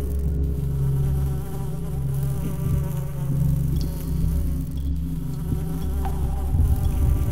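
Dark ambient horror soundscape: a steady, low buzzing drone with faint scattered clicks over it.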